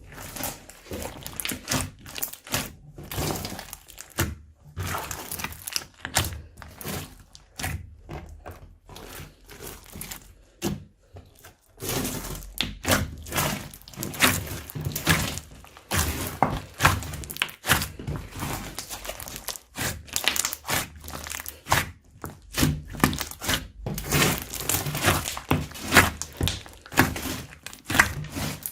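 Slime mixed with crunchy foam being kneaded and squeezed by hand: a dense, irregular run of crackles, pops and squelches, with a couple of brief lulls.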